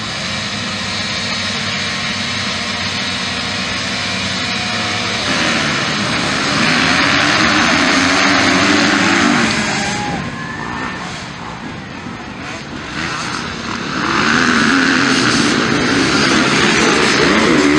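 A pack of motocross bikes' engines revving hard. The engines run steady at first. About five seconds in they get suddenly louder, the pitch rising and falling with the throttle as the bikes race close by. They ease off briefly around ten seconds in and swell again near fourteen seconds.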